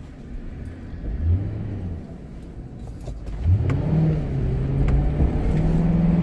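Car engine heard from inside the cabin while driving. The engine note rises briefly a little after a second in. About three and a half seconds in it climbs again as the car accelerates, then holds steady and louder.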